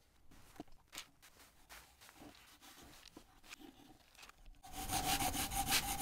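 Pencil drawing on a kiln-dried walnut board: faint scattered ticks and scratches, then from about five seconds in a louder, fast rhythmic scratching of the lead across the wood.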